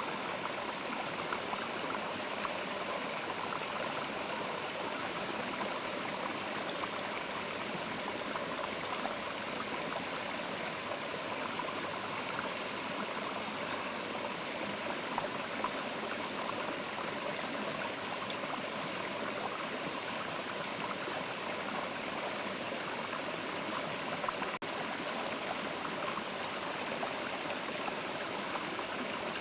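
Mountain river flowing, a steady rushing and babbling of water over stones.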